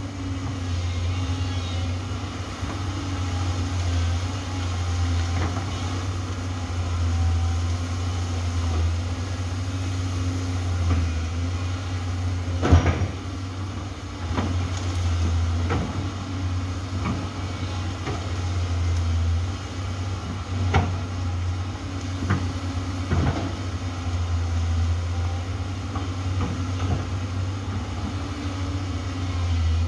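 Amphibious excavator's diesel engine running steadily, with a few sharp knocks, the loudest about halfway through.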